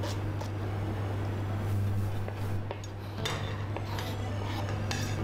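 Kitchen knife chopping an onion on a plastic cutting board, a run of quick blade taps on the board, then the blade scraping the chopped onion across the board, over a steady low hum.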